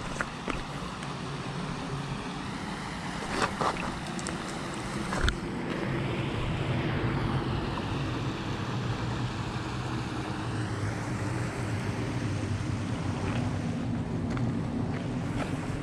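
Suzuki DR650's single-cylinder engine running at low revs as the dual-sport motorcycle rides along a dirt track, its pitch drifting up and down, with wind rushing over the microphone. A few sharp knocks come in the first five seconds.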